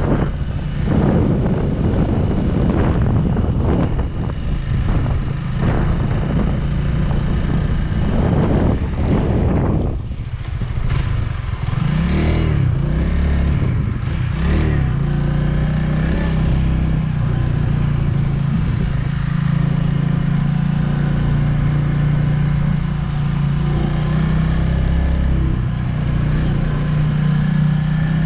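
Honda Rebel 300's single-cylinder engine running under way, with gusty wind noise on the microphone for the first ten seconds. About ten seconds in the engine note drops off, swings up and down in pitch for a few seconds, then settles into a steady cruise.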